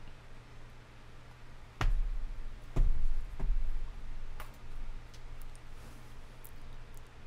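A few handling knocks close to a desk microphone: sharp clicks with heavy low thumps about two seconds in, again about a second later and once more just after, then a few faint ticks, over a steady low hum.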